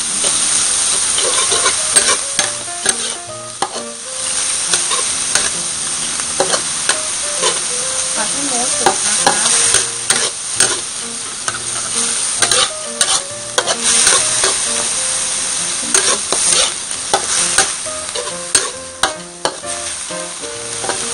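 Minced pork sizzling in oil in a wok while a metal spatula stir-fries it, scraping and clacking against the pan many times.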